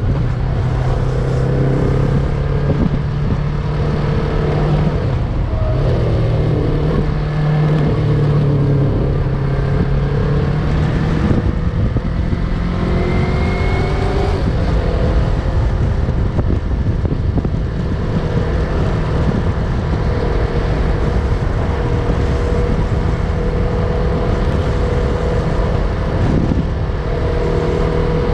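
Yamaha MT-03 motorcycle engine running under way, its note shifting up and down several times with throttle changes, over a steady rush of noise.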